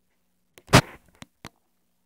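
Legless lizard crunching an adult grasshopper in its jaws: one loud crunch about three-quarters of a second in, with a few sharp clicks just before and after it.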